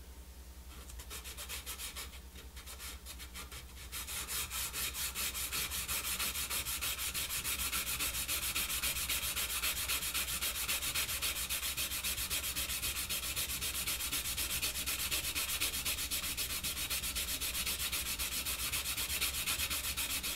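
A cane clarinet reed rubbed by hand on sandpaper laid over a glass plate, a dry scratchy sanding sound. A few separate strokes give way about four seconds in to fast, steady back-and-forth rubbing.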